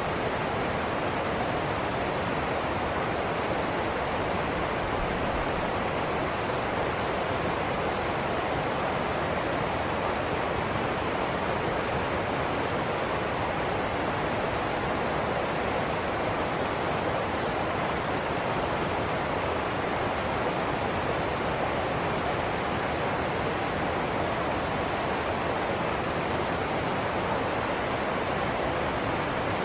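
Water of a small river rapid rushing over rocks: a steady, even rush with no breaks.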